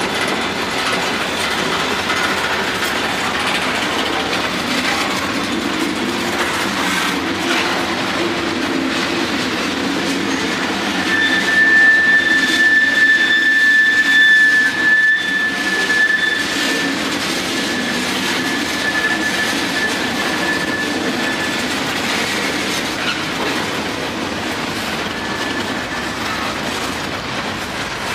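Freight cars of a manifest train rolling past, with steady clattering of wheels over the rail joints. About 11 seconds in, a high, steady wheel squeal starts; it is loudest for a few seconds, then comes and goes and fades out about 22 seconds in.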